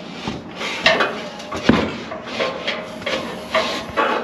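A series of sharp metallic clanks and knocks, about six in four seconds, some with a short ring, as a steel propane tank is shoved into place under a gas griddle's side shelf and its valve and regulator fitting are handled.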